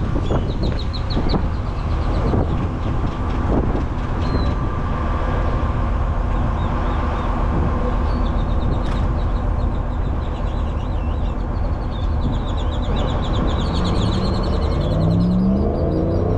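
A vehicle engine running steadily, with short high chirps repeating over it. In the last few seconds the engine's pitch rises and falls.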